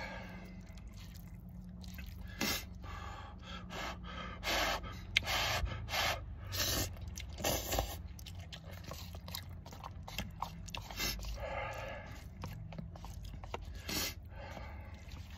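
A person slurping and chewing instant ramen noodles eaten with chopsticks from a cup, in short bursts repeated every second or two, with breathing between mouthfuls.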